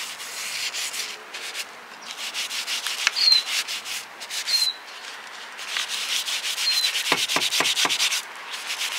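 Paper towel rubbed hard back and forth over a decor transfer on a painted terracotta pot, burnishing it flat to press out air bubbles. Quick rasping strokes in an uneven rhythm, with a few short high chirps.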